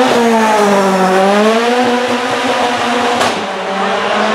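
A Seven-style open sports car's engine pulling hard off the start line, held at high revs. Its note dips in pitch about a second in, then holds steady and fades slightly near the end.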